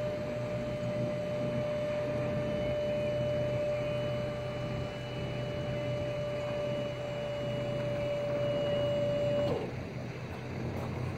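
Electric-over-hydraulic pump of a power-tilt trailer running with a steady whine as it tilts the deck up, then shutting off with a falling pitch about nine and a half seconds in.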